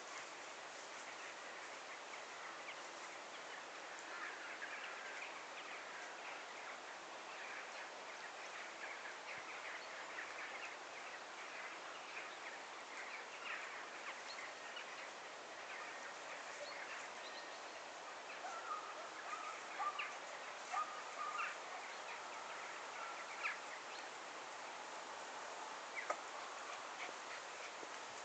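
Countryside ambience: a steady background hiss with scattered short bird calls and chirps, more frequent in the second half.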